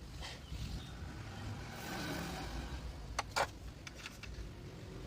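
A low steady rumble, with two sharp clicks a little past three seconds in and a few fainter ticks after them.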